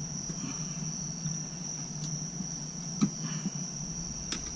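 Crickets trilling steadily and continuously over a low, even hum, with two sharp clicks from tire work on the rim, one about three seconds in and one near the end.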